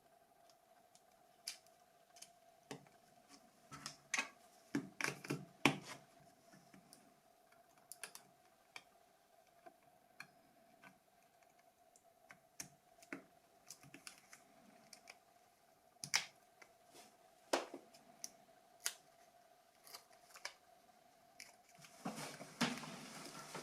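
Scattered small plastic clicks and taps of a Nokia 6600 slide phone being handled and its keys pressed, with a quick run of louder clicks about five seconds in and a short rustle near the end, over a faint steady hum.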